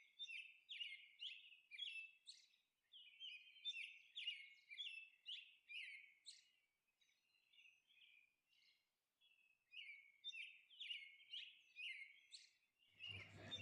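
Faint bird chirping: a quick series of short, high chirps that stops for about three seconds midway, then starts again.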